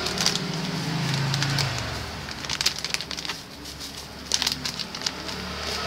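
A plastic seasoning packet crinkling as it is tipped over an aluminium pot: two clusters of short clicks and crackles, about halfway through and again near the end. A low drawn-out hum-like sound sits under the first two seconds.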